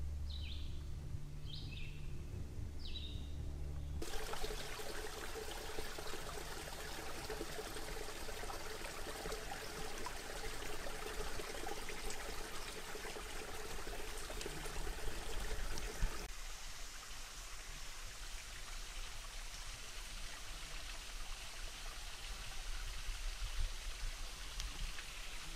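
A bird gives a few short chirps over a low hum, then, from about four seconds in, a small woodland stream runs with a steady rushing hiss, its sound shifting abruptly near the middle.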